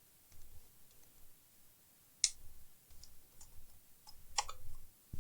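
Scattered clicks and taps as a laptop and its keyboard are handled on the bench, with one sharper click about two seconds in and a couple more near the end.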